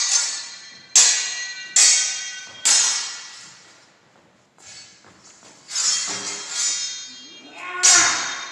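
Broadswords clashing blade on blade, each strike ringing and fading away: three quick clashes in the first three seconds, a lull, then more hits, the loudest near the end.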